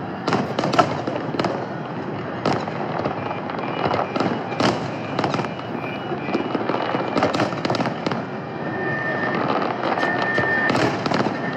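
Fireworks display with many shells bursting in quick succession: a continuous run of irregular bangs over dense crackling.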